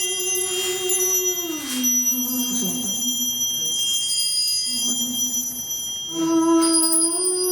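Slow music: long held notes with a slight waver, the melody sliding down about two seconds in and back up after six seconds, over high ringing bell tones.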